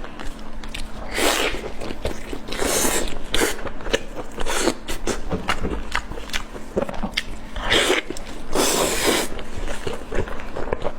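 Close-up eating sounds: a person biting and chewing food with many small wet mouth clicks and smacks. Several longer hissy bursts, around a second in, near three seconds, and twice near eight and nine seconds, mark slurps or sharp breaths.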